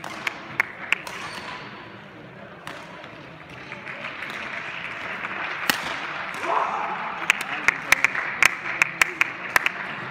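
Badminton in a sports hall: sharp racket strikes on the shuttlecock during a rally, over voices echoing in the hall, with a quick run of sharp smacks in the last few seconds.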